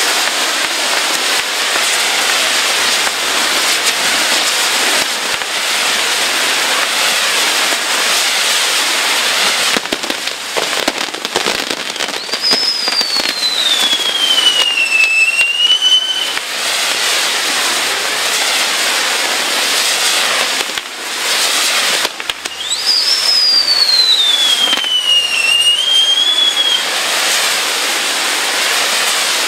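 Fireworks crackling and fizzing continuously, with two long whistles that each fall in pitch and then rise slightly at the end, one near the middle and one in the second half.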